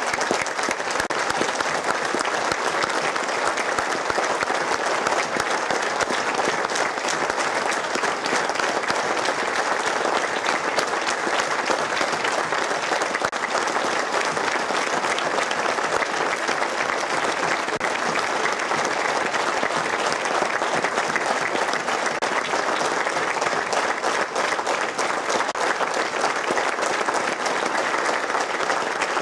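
Spectators at a football ground applauding steadily and without a break: a minute's applause held as a memorial tribute.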